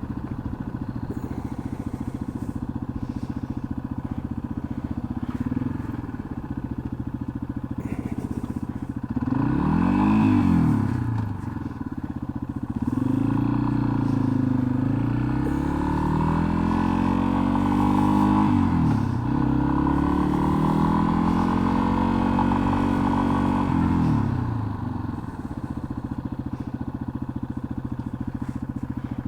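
Yamaha XT250's single-cylinder engine running steadily at low revs. About nine seconds in it revs up and back down. From about thirteen seconds it climbs in pitch twice, with a gear change between, then drops back to low steady running near the end.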